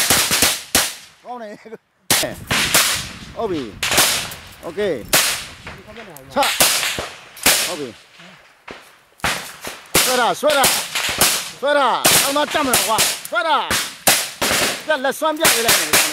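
Rifle gunfire in a firefight: strings of rapid shots and bursts, with short gaps of a second or so between volleys.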